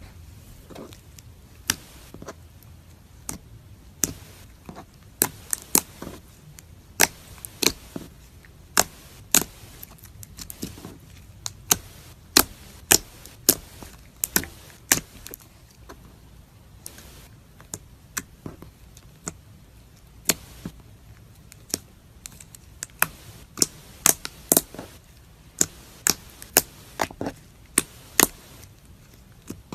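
Crunchy slime being pressed and squeezed, giving sharp crisp clicks and crackles at an irregular pace, often one or two a second.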